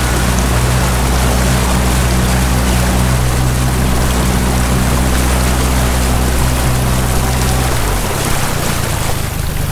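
Bass boat's outboard motor running with a steady low hum over rushing water. The engine note cuts off about eight seconds in, leaving only the water noise.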